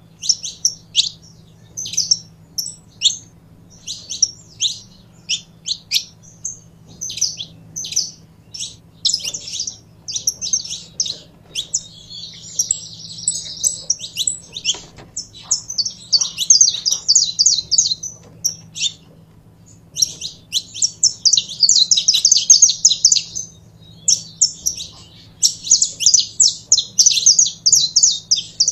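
Saffron finch calling and singing: short, sharp, high chip notes one or two a second, breaking from about halfway into fast chattering runs with a brief pause between them.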